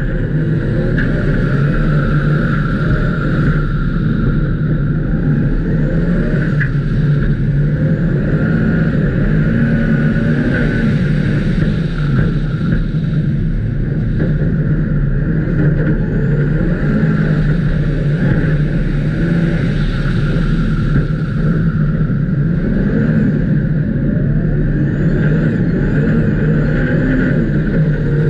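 Ice racing car's engine, heard on board, running hard under changing throttle, its note rising and falling as the car drives through the corners of an ice track.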